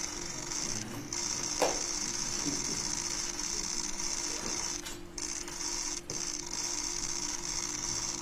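Many press camera shutters firing in rapid continuous bursts, pausing briefly now and then, over a steady hum of room noise.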